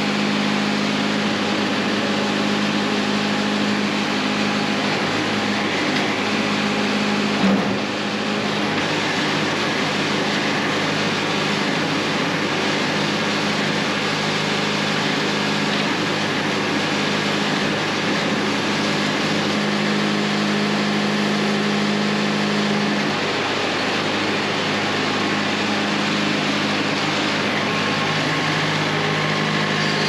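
An engine running steadily at a constant speed, with a brief knock about seven and a half seconds in.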